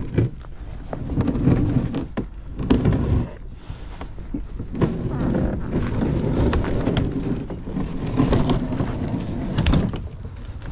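Wheels of a kayak cart carrying a loaded plastic fishing kayak rolling and bumping over rocks and gravel: a rumbling with irregular knocks and rattles.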